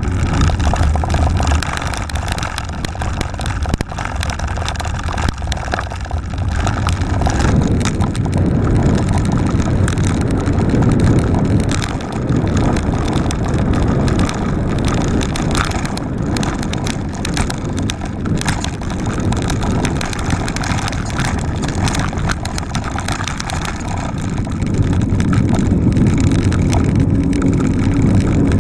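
Mountain bike ridden fast, heard from a camera on the bike: continuous tyre rumble and rattling of the bike, with wind rushing over the microphone. It runs over cobblestones at first, then over a dirt forest trail.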